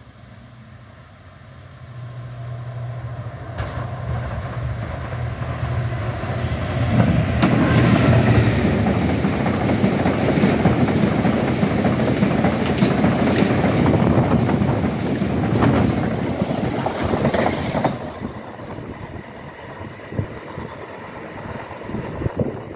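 Class 66 diesel locomotive's EMD two-stroke V12 engine drawing near and passing, a steady low drone that grows louder over the first eight seconds. A long rake of hopper wagons follows, rumbling by with the wheels clattering over the rail joints. About eighteen seconds in the rumble drops away to a quieter background with a few faint knocks.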